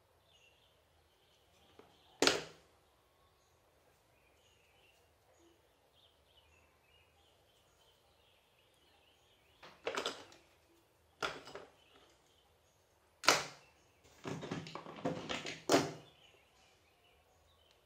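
Hands handling a small earphone cable and plug: a sharp click about two seconds in, a few more clicks and knocks later on, then a short run of crackling handling noise near the end. Faint bird chirps in the background.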